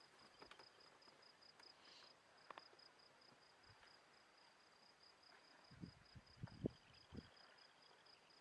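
Faint, near-silent background with an insect chirping in a steady, rapidly pulsing high trill. There are a few soft low thumps about six to seven seconds in.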